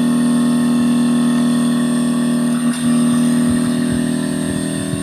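Panasonic 2.5 HP inverter air conditioner running: a steady hum with several held tones from the compressor and outdoor fan motor, working again after its IPM module was replaced. There is a brief dip about two and a half seconds in and a few faint low knocks after it.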